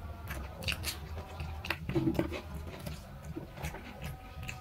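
A person eating rice and curry by hand: fingers mixing and scooping food on a plate, and chewing, heard as many small irregular clicks and smacks.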